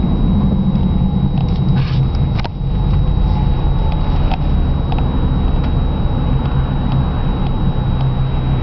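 Steady low engine and road rumble heard inside a Ford Mustang's cabin while it drives slowly in traffic, with a few light clicks.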